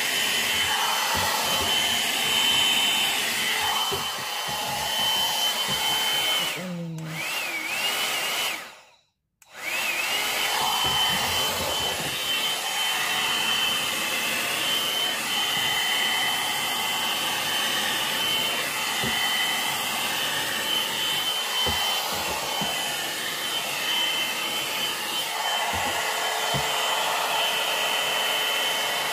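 Hot air brush (one-step hair dryer and styler) blowing while it is worked through hair: a steady rush of air with a high motor whine. About nine seconds in it cuts out for a moment, then comes back with the whine rising as the motor spins up.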